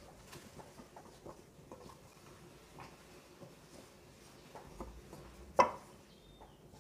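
Hand mixing flour, butter and milk into a crumbly dough in a glass bowl: faint soft rustling and light taps from the fingers working the mixture, with one sharper knock about five and a half seconds in.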